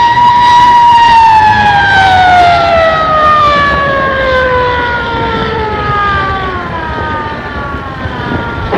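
A siren wailing: it holds a steady pitch for about a second, then winds slowly down in pitch and fades.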